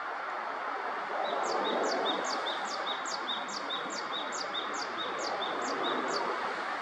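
A great tit (the East Asian form, Parus minor) singing its two-note 'teacher' song: a short note and then a quick downward whistle, repeated about a dozen times at some two and a half phrases a second. The song starts about a second in and stops near the end, over a steady hiss of background noise.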